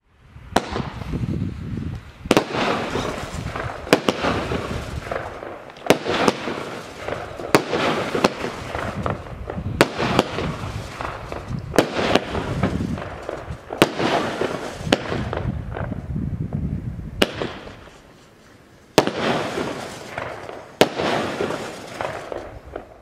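Blackboxx Van Helsing 10-shot 25 mm firework cake firing. Sharp launch shots come about every two seconds, each followed by the crackle and rush of the bursting stars, with a brief lull before the last few shots.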